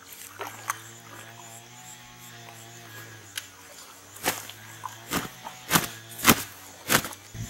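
A freshly landed fish thrashing, giving about five sharp slaps and knocks in the second half, over a steady low electrical hum.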